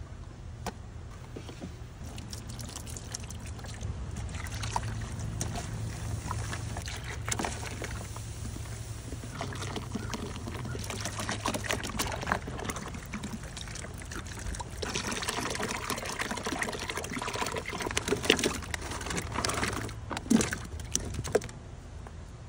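Juice poured from a plastic bottle into a plastic cooler, splashing over the tubs of sherbet inside, over a steady low hum. In the last few seconds come sharper splashes and knocks.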